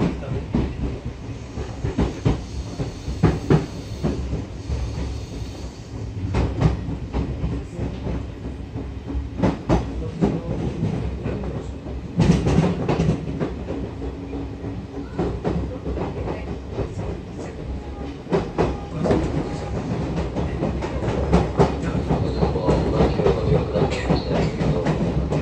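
Odakyu 8000 series electric train (field-chopper control) running, heard from inside the car: a steady low rumble with irregular clacks of the wheels over rail joints.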